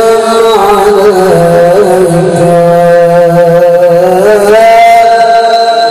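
A man's voice singing an Arabic shalawat, praise of the Prophet, in long melismatic lines. Long held notes are joined by wavering ornamental turns, and a long steady note is held near the end. The voice is amplified through a microphone and loudspeaker.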